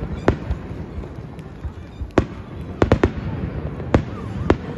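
Aerial firework shells bursting: a string of sharp bangs, with three in quick succession near the middle, over a steady low rumble.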